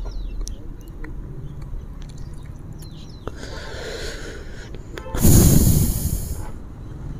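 Wind buffeting the microphone in a loud gust about five seconds in, over a faint outdoor background with a few short high chirps.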